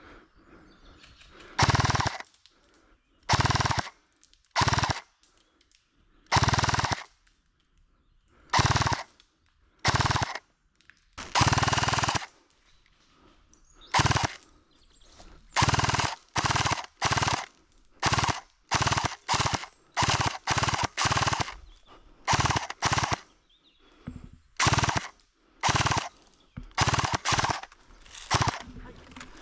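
Airsoft replica firing on full-auto in about two dozen short bursts, each under a second, with quiet gaps between; the bursts come every second or two at first and closer together in the second half.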